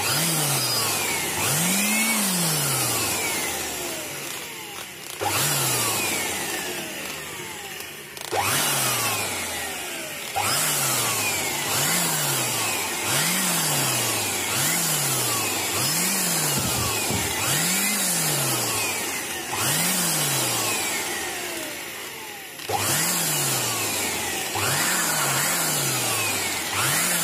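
Electric air blower blowing dust off an inverter's circuit board through a hose nozzle: a loud steady rush of air that jumps back up in level several times, about 5, 8, 10 and 23 seconds in, as the nozzle is moved over the board.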